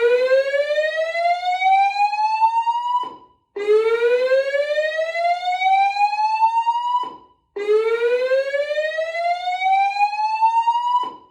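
Fire alarm voice-evacuation system sounding its whoop evacuation tone between spoken announcements: three slow upward pitch sweeps, each about three and a half seconds long, with a short break between each.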